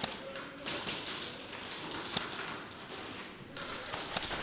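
A scatter of irregular sharp taps and clicks over a rustling hiss during an indoor airsoft game.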